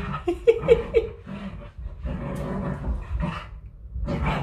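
Dog growling and whining as it spins chasing its tail, with a few short squeaky whines in the first second.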